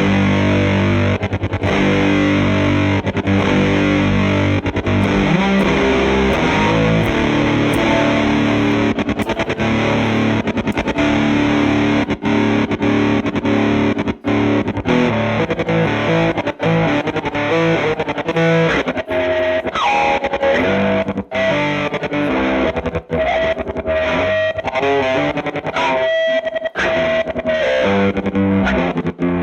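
Electric guitar played through a telephone-style fuzz pedal: heavily distorted, fuzzy chords and riffs, broken by frequent brief stops between strums.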